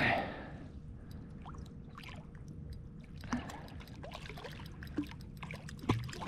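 A short splash at the start, then water trickling and lapping, with scattered small clicks and knocks.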